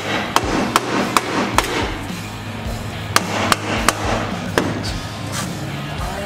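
Hammer blows on a Jeep Wrangler's stock driveshaft flange, knocking it loose from a yoke that corrosion has stuck fast. Sharp strikes about two and a half a second: five in quick succession, a pause of about a second and a half, then four or five more.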